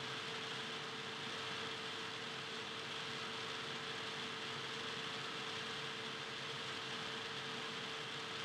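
Steady, even hiss with a constant mid-pitched hum tone running under it: background noise.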